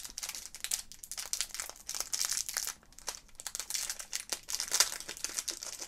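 Thin clear plastic bag crinkling and crackling in irregular bursts as fingers work it open to get out a small keychain.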